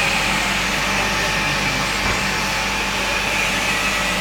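Steady noise of running machinery: an even drone with a faint high whine held throughout.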